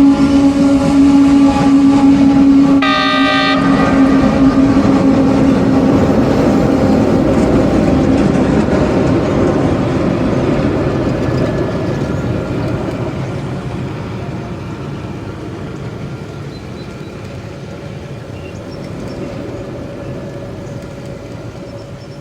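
Model tank-car train double-headed by ÖBB class 1044 locomotives running past with a steady hum, a short horn blast about three seconds in, then a rolling rumble that slowly fades as it moves away.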